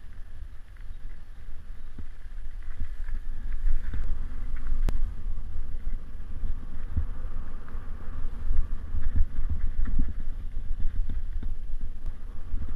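Mountain bike rolling fast along a dirt forest trail, heard from a camera mounted on the bike: a steady low rumble of wind on the microphone and tyres over the ground, with occasional sharp knocks and rattles from the bike over bumps.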